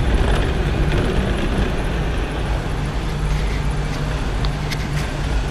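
Steady engine and road rumble heard from inside the cabin of a moving car.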